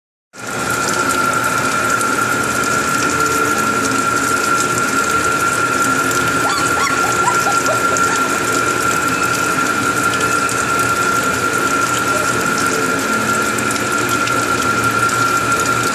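A small motor running steadily, with a constant high whine over a rushing hiss.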